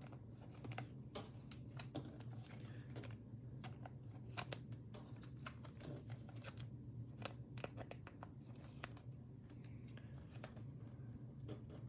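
Trading cards and a plastic card sleeve being handled, making faint, scattered light clicks and rustles, one a little louder about four seconds in, over a low steady hum.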